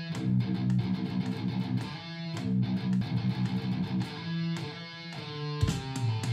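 Electric guitar playing a picked riff, notes and chords ringing out between quick pick attacks.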